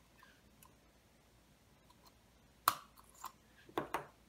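Small metal clicks from two screwdrivers prising the needle off a Smiths speedometer's drive shaft: one sharp click a little past halfway, then three lighter clicks near the end.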